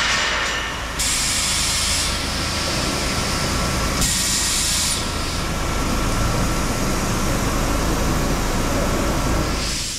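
Steel-tube handling and bundling line running, with a steady clatter and rumble from its chain conveyors and machinery. Two bursts of air hiss come through, about a second in and again about four seconds in.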